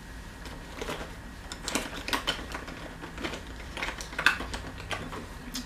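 Makeup compacts and cases clicking and clattering against each other as they are rummaged through in a basket: a scattered run of light taps and knocks, busiest about two seconds in and again about four seconds in.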